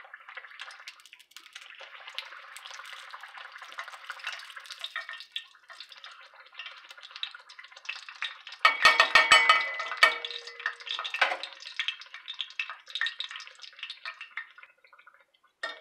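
Fry bread dough frying in hot oil in a cast iron skillet, with a steady fine crackle and sizzle. About nine seconds in, the sizzle flares louder for a second or so, with a few knocks of the metal spatula against the pan.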